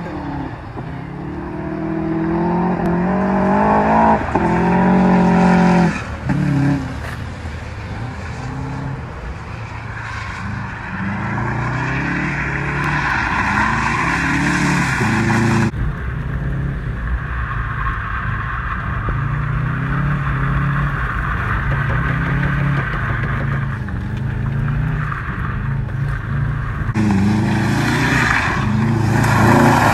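Subaru WRX drift car's engine revving up and falling back again and again as the car slides sideways, with tires squealing through the slides.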